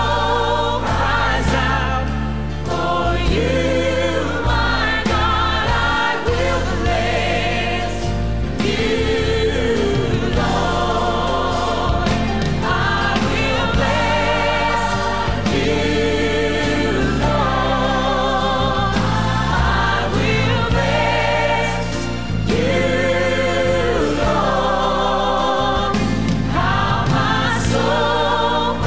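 Christian worship song: a choir singing with vibrato over instrumental backing with a steady bass line.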